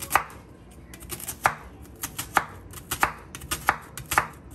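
Chef's knife slicing a red onion thin on a wooden cutting board: a series of sharp, uneven knocks as the blade cuts through and strikes the board.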